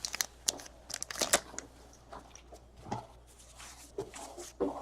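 Topps Heritage baseball cards being handled and slid past one another: a string of short papery clicks and rustles.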